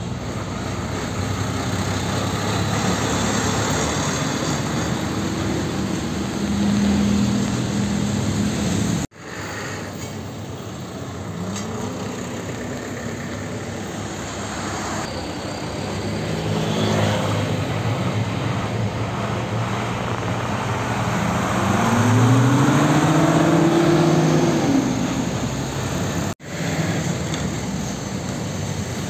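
Heavy diesel trucks passing at a roundabout amid road traffic, their engines running under load and revving up and down as they pull through; the sound drops out abruptly twice.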